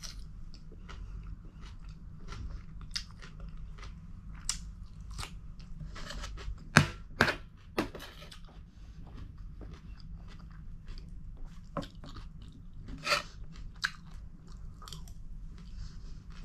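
A person chewing and crunching food close up: irregular crunches and wet mouth clicks, with a few louder crunchy bites about seven seconds in and again about 13 seconds in, over a low steady hum.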